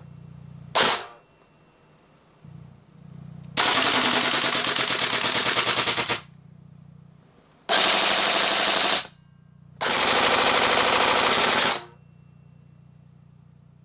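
Tokyo Marui airsoft rifle firing, dry-fired without BBs: a single shot, then three full-auto bursts lasting about two and a half, one and a half, and two seconds.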